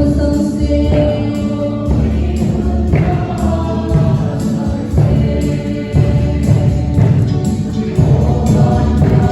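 Choral gospel-style Christian music: voices singing together over a steady beat.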